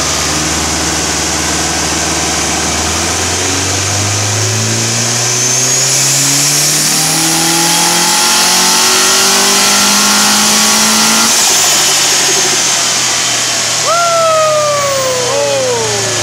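The built, turbocharged Subaru boxer engine of a 2005 Legacy idles, is revved up steadily and held high for several seconds with a faint high turbo whistle, then drops back to idle. Near the end a quick throttle blip brings a whistle that falls sharply in pitch, twice, as the turbo spools down.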